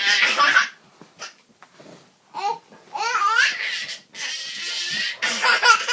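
A toddler laughing hard, with high-pitched squeals and breathy bursts of laughter.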